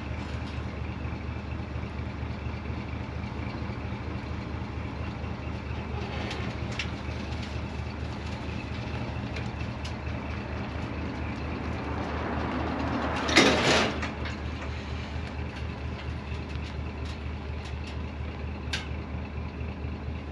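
Old wrecker truck's engine running steadily with an even low pulse as it tows a truck off a trailer by chain. About 13 seconds in there is a brief loud rushing scrape.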